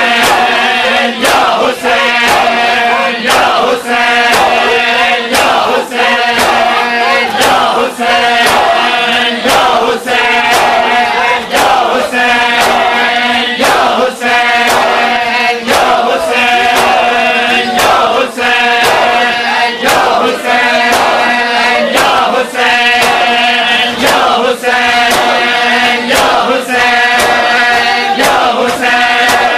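A crowd of men chanting a noha lament in unison, with massed chest-beating (matam) striking in time, about one slap every 0.7 seconds.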